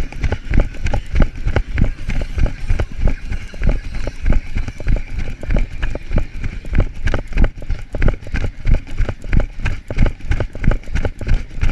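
Running footsteps in a fast, steady stride, a thump about three times a second, with the handheld camera jolting at each step.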